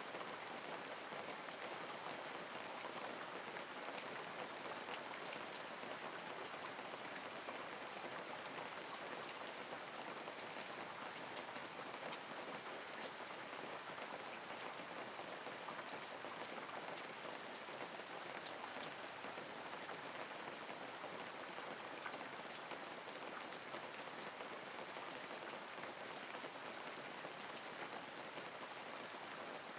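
Steady light rain falling, an even hiss with many small drops pattering on leaves and surfaces.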